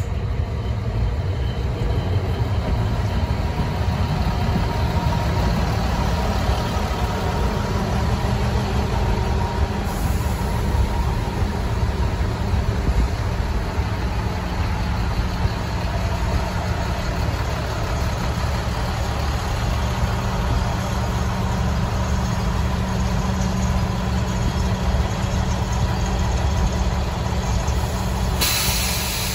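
Diesel railcar train's engines running steadily in a low rumble as the train rolls slowly past and comes to a stand. A hiss comes in near the end.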